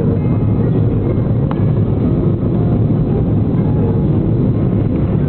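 Steady low roar of a jet airliner's engines and airflow heard from inside the passenger cabin.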